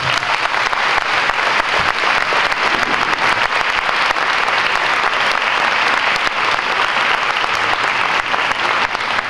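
Audience applauding: many hands clapping in a dense, steady wash.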